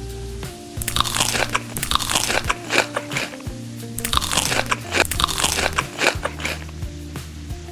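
Crunching of someone biting into and chewing crunchy food, in two spells of rapid crisp crunches about a second apart, over background music with soft held notes.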